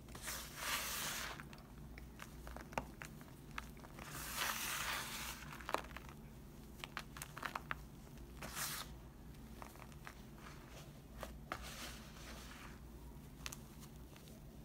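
Dry clumps of Foca laundry detergent powder mixed with baking soda being squeezed and crumbled by hand. The powder pours back down in several soft hissing spills, with small crisp crunches of breaking clumps in between.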